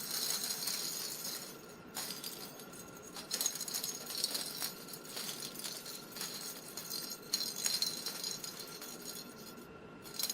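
Small cat toy balls rattling and clinking as they roll around the track of a homemade frame-ring cat toy, in uneven bursts with short lulls.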